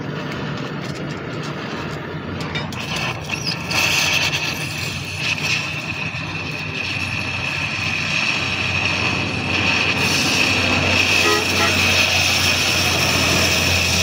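Gas cutting torch hissing as its flame cuts into a truck wheel hub's check nut. A steady hiss sets in about four seconds in and grows louder through the second half, with a low hum joining after about ten seconds.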